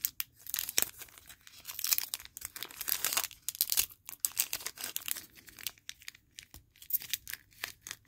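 A trading card pack's sealed wrapper crinkling and tearing as it is pulled apart along its seam by hand, with irregular crackles throughout.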